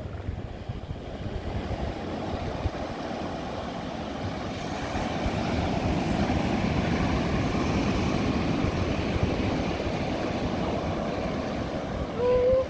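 A colony of female and young northern elephant seals grunting and belching together, a dense rough rumble mixed with surf and wind on the microphone. It swells in the middle, and a short rising call comes near the end.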